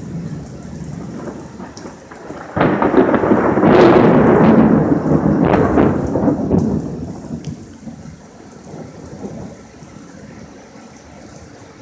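Thunder from nearby lightning: a sudden crack about two and a half seconds in, then loud crackling and rumbling with sharper cracks that fades away after about five seconds. Rain hisses steadily throughout.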